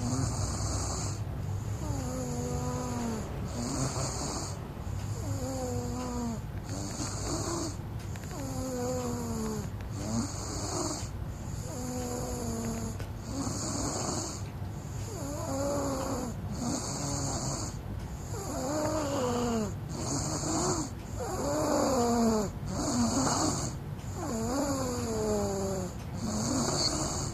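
Someone sound asleep and snoring in a steady rhythm, a new breath every second or two, each with a whistling tone that bends in pitch.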